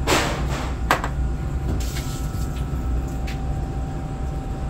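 Dirty water being let out through the drain hose of a Kaivac 17501 cleaning machine's recovery tank: a short hissing rush as the hose opens, a knock about a second in, then a few faint handling clicks over a steady low hum.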